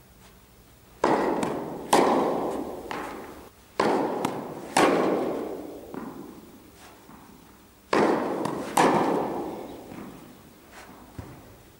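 Tennis balls struck by rackets in a large indoor tennis hall: three pairs of hits, the two in each pair about a second apart, each hit ringing out with a long echo.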